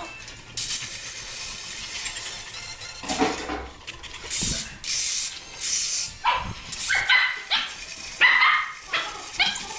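A dog barking in a quick series of short, excited barks from about six seconds in. Before that come several bursts of hissing.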